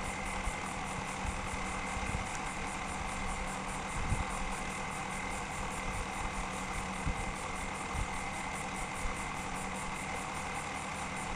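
A steady background drone with a constant high tone running through it, and a few soft knocks as rope is pulled tight around a bundle of wooden poles for a tripod lashing.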